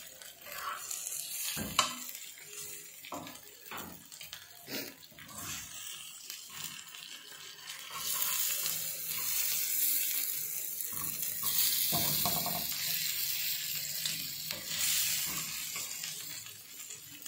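Chicken pieces sizzling in their own liquid on a hot iron tawa while being turned with metal tongs, with scattered clicks and scrapes of the tongs on the griddle. The sizzle grows louder about halfway through.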